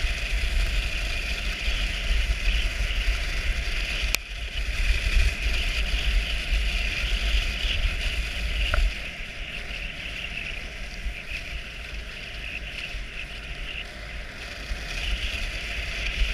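Dog sled running on a snow trail behind a six-dog team: a steady hiss of runners and paws on snow. Low wind rumble on the microphone eases a little past halfway, and there is a single sharp click about four seconds in.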